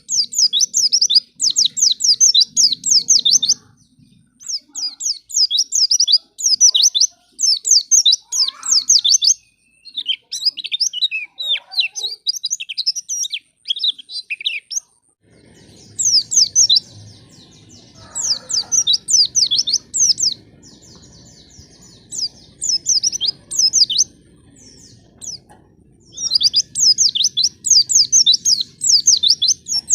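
White-eyes (pleci) singing in quick bursts of high, rapidly falling chirps, about a second per phrase with short gaps between, looser twittering in the middle. This is the kind of white-eye song used as a lure to get other pleci singing. A faint low hum sits underneath in the second half.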